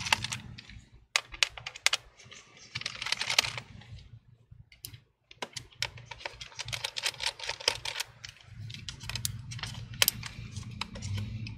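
Small screwdriver backing out the screws that hold a laptop battery in the chassis. It makes runs of rapid small clicks and ticks, broken by short pauses between screws.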